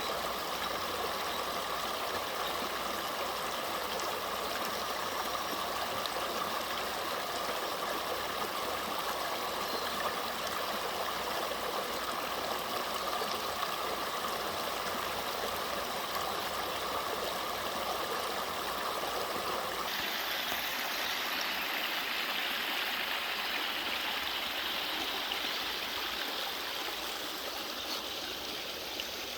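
Mountain stream water sliding and rushing steadily down a rock-slab waterfall. About two-thirds of the way through the sound changes suddenly to a brighter, hissier rush.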